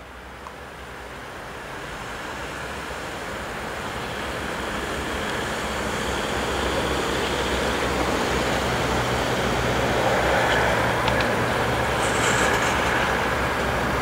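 CFR class 40 (LE 060 EA) electric locomotive approaching at the head of a regional train, its rumble and low hum growing steadily louder over the first several seconds and then holding, with a few brief clicks near the end.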